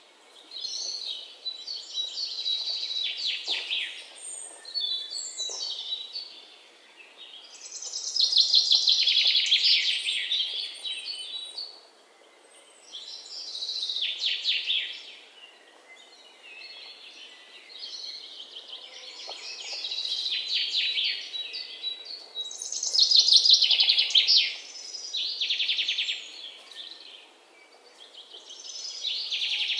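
Birds chirping in repeated phrases of rapid, high chirps and trills, each a second or three long with brief pauses between; the loudest phrases come about a third of the way in and again past the middle.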